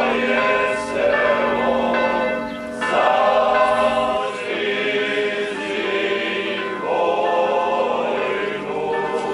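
Church bells ringing, each new strike ringing on over the others, mixed with choral singing.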